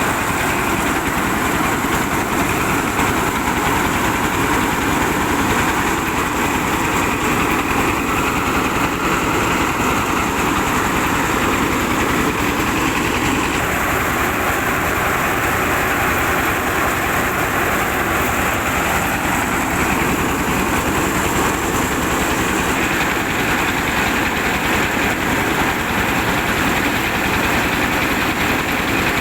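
An old car's engine running steadily while it drives a home-made rice milling machine, a continuous mechanical running noise with a slight change in tone about halfway through.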